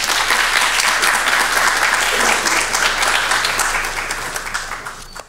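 Audience applauding: dense, steady clapping that fades near the end.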